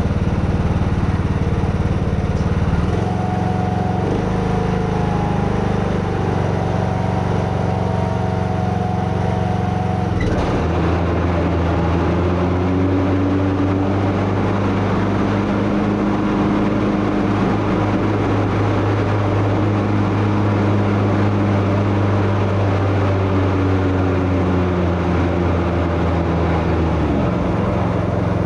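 Craftsman T110 lawn tractor engine running with the mower deck's blades engaged, steady and way too loud, with an extra whining noise from the deck that the owner takes for a failed bearing in a blade spindle or an idler pulley. The pitch of the running shifts about ten seconds in.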